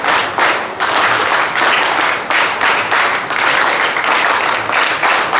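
Audience applauding, a dense steady clapping that starts to die away right at the end.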